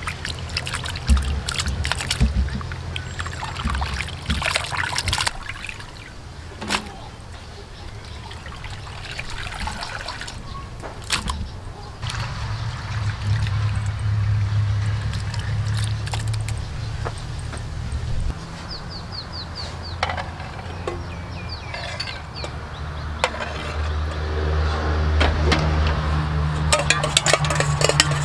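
Water splashing and sloshing as hands scrub a mass of small raw frogs in a stainless steel bowl, with a steady low hum in the background later on.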